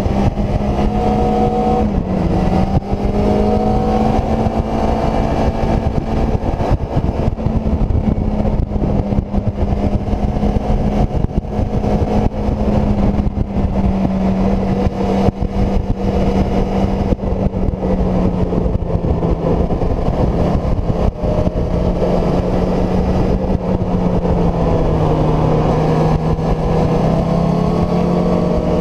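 Kawasaki ZZR600's inline-four engine running hard at high revs, heard from a camera mounted on the bike. A dense rush of wind and road noise runs under it. The engine note holds mostly steady, sags a little late on, then climbs again near the end.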